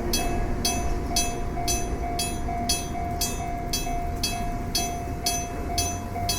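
Electric-bell railway level-crossing alarm ringing: its striker hits the gong in an even rhythm of about two strokes a second, each stroke ringing on, the warning that a train is approaching.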